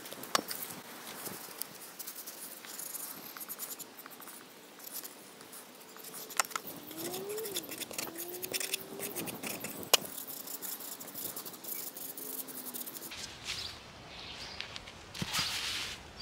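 Gloved hands working glue into a split plywood chair seat: small rubbing and handling noises with scattered clicks and a few sharp taps, the sharpest about ten seconds in.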